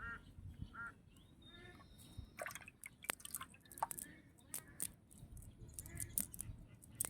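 A duck quacks twice in the first second, then irregular sharp drips and small splashes of water.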